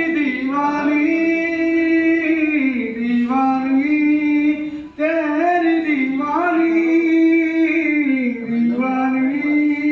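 A man singing unaccompanied into a handheld microphone, holding long, wavering notes in two phrases with a brief break about five seconds in.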